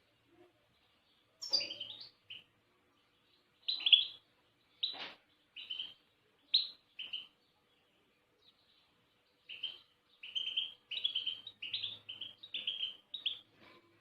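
A small cage bird chirping in short, separate notes. It gives a few notes early, then single chirps about a second apart, then a quicker string of chirps in the last few seconds.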